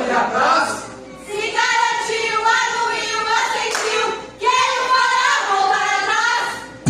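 A group of young voices singing in phrases with short breaks, with hand clapping.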